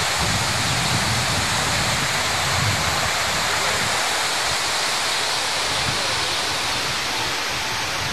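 Steady rush of a large fountain's falling water splashing into its pool.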